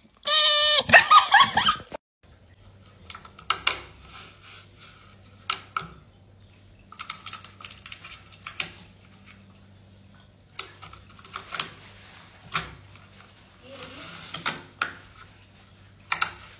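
A dog gives a high, wavering whine for about two seconds. Then a cat rubs its face and cheek against a plastic-bristle corner self-groomer, making irregular scratchy brushing strokes over a faint steady hum.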